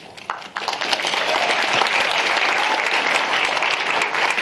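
Audience applauding. The clapping builds up about half a second in and then holds steady.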